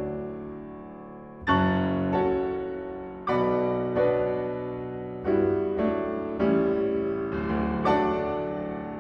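Solo grand piano playing a slow passage of full chords. After a fading chord, a fresh chord is struck about a second and a half in, then roughly every half second to a second and a half, each one left to ring and die away.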